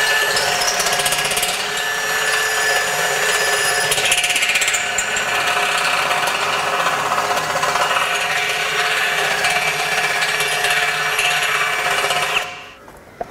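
Power drill running under load for about twelve seconds, boring out the undersized bolt holes in the steel foot of an air compressor tank, with a steady whine over a grinding chatter. It stops abruptly near the end.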